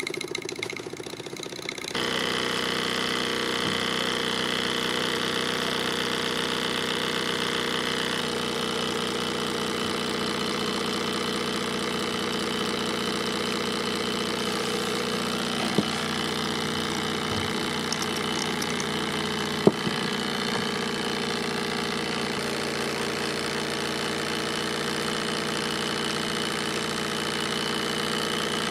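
Mamod TE1A model steam tractor's oscillating-cylinder steam engine running fast and steady under steam. It gets louder about two seconds in, with two short sharp clicks midway.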